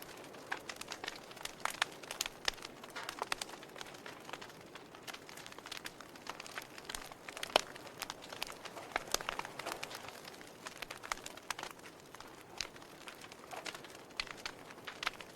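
Wood fire burning in a fireplace, crackling with frequent irregular pops and snaps over a soft steady hiss.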